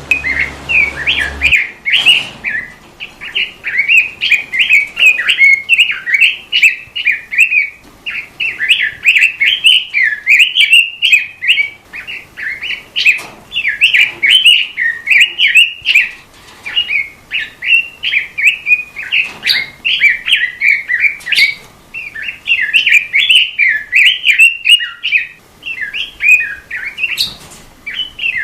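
A songbird of the kind Indonesian bird-keepers call a robin, singing a fast, continuous run of sharp chirps and warbles, with short pauses every few seconds.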